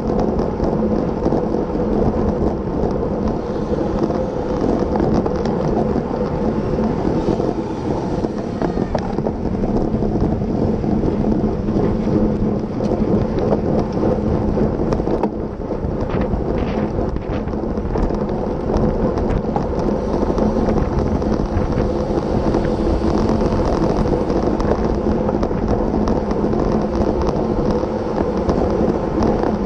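Steady wind rumble buffeting the microphone of a camera riding on a racing bicycle at about 30 mph, with a low steady hum running underneath.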